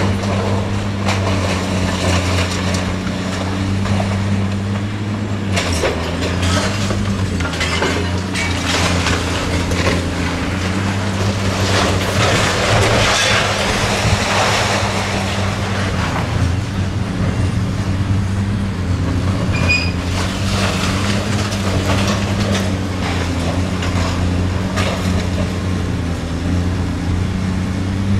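Long-reach demolition excavator's diesel engine running under varying load, with concrete crunching and debris clattering as its jaws tear at the building; the crunching is heaviest about halfway through.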